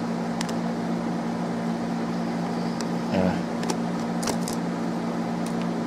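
A few light clicks and taps of small parts being handled while a laptop battery is unplugged from its mainboard, over a steady low hum.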